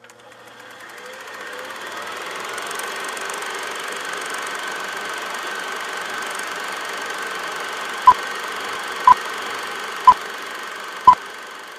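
Vintage film projector running: a steady mechanical whir and clatter that fades in over the first couple of seconds. From about eight seconds in, film-leader countdown beeps sound once a second, four times, louder than the projector.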